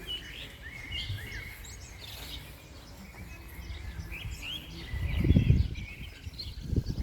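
Small birds chirping and twittering over the low rumble of wind blowing on the microphone, with a stronger gust about five seconds in.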